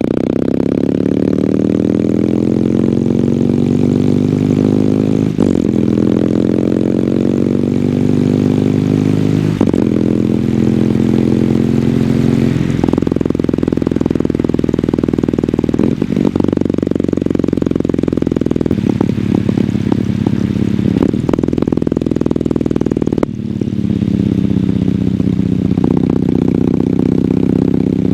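Kawasaki W800's air-cooled parallel-twin engine through its stock exhaust while riding, the pitch climbing as it pulls through the gears, with short breaks at each gear change and a brief drop in level near the end before it settles back into steady running.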